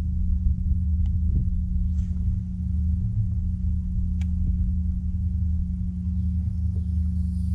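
Steady low hum and rumble from the bass boat's electric trolling motor, with wind rumbling on the microphone. A few faint clicks stand out about one, two and four seconds in.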